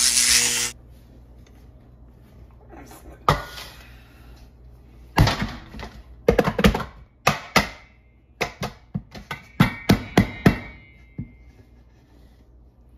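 A short bright swoosh with a held tone, then knocking on an upturned stainless steel pot sitting on a steel platter: one knock about three seconds in, then a quick run of roughly fifteen knocks from about five to ten and a half seconds in, the later ones ringing briefly. The pot is being rapped to loosen the pulao before it is lifted off.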